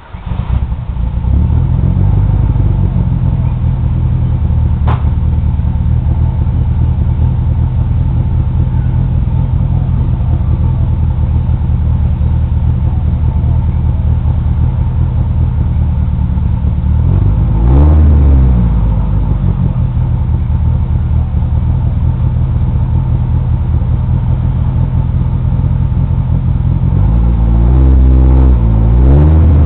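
Mitsubishi 4G63 2.0-litre four-cylinder engine in an all-wheel-drive Mirage starting up and settling into a steady, loud idle, blipped briefly about two-thirds of the way through and again a couple of times near the end.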